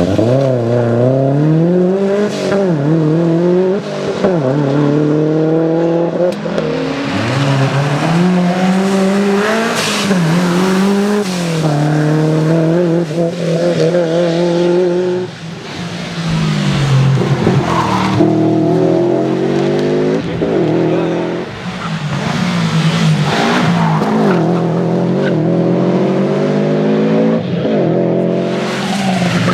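Subaru Impreza rally car's flat-four engine revving hard under acceleration. Its pitch climbs and drops again and again through the gear changes, with brief lifts off the throttle about halfway through.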